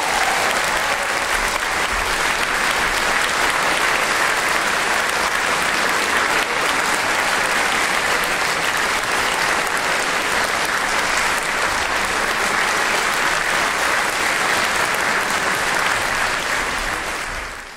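Concert-hall audience applauding steadily after the music ends, the applause fading out at the very end.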